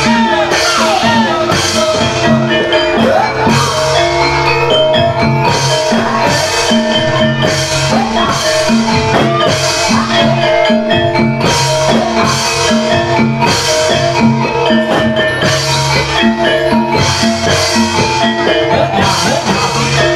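Javanese gamelan ensemble playing dance accompaniment: bronze metallophones ringing a repeating melody over a steady drum beat.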